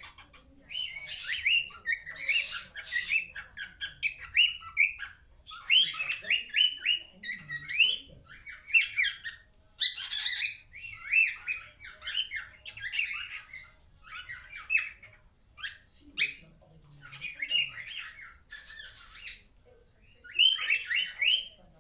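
Cockatiel squeaking and chattering: long runs of short, quick warbled notes with brief pauses between phrases.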